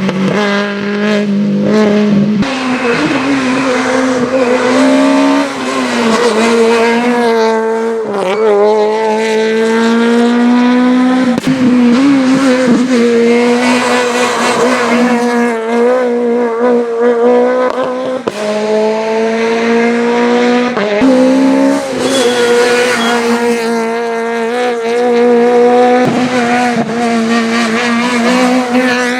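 A rally car's engine run hard at high revs, its pitch dropping and climbing again every few seconds with each gear change or lift.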